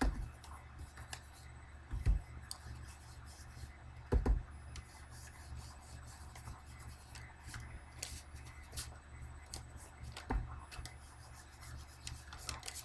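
Ink being rubbed onto the edges of cardstock to distress it, a soft scratchy rubbing with a few dull knocks on the table, over a steady low hum.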